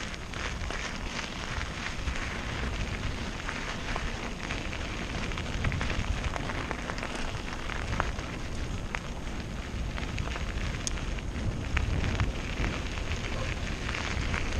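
Mountain bike tyres rolling fast over a loose gravel track, a steady crackling crunch of small stones with a low rumble underneath.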